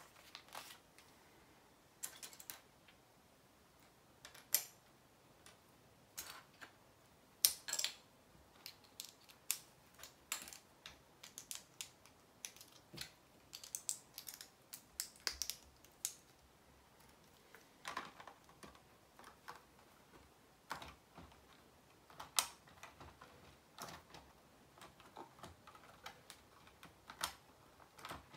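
Plastic Lego bricks clicking and tapping as pieces are picked up, handled and pressed together. The clicks come irregularly, sometimes several a second and sometimes with short gaps.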